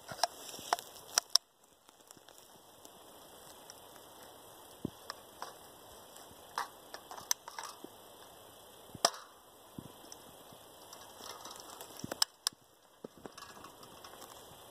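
Scattered sharp clicks and clacks of a 37 mm less-lethal launcher pistol being handled and readied, its plastic and metal parts snapping together, with the loudest snaps about a second in and about nine seconds in.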